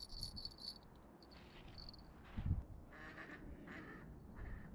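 Ducks quacking several times, short raspy calls spread through the last three seconds. A fast high ticking is heard in the first second, and a soft low thump about halfway.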